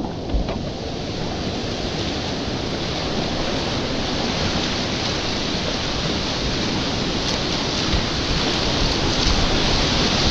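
Whitewater rapids rushing, a loud, even wash of churning water that grows slightly louder near the end.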